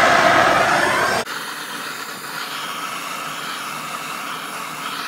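Handheld gas torch with a cone-shaped diffuser head, its flame hissing steadily as it sears the wet bark of a sous-vide brisket. A little over a second in, the hiss drops suddenly to a lower, quieter level.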